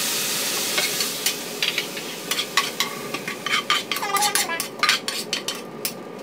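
Bean sprouts and greens sizzling in a non-stick frying pan as a plastic spatula stirs them, the sizzle dying down; in the second half the spatula scrapes and knocks against the pan again and again as the vegetables are pushed out into a bowl.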